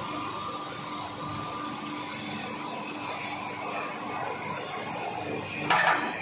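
Steady whirring of workshop machinery with a low hum. A brief, louder burst of noise comes near the end.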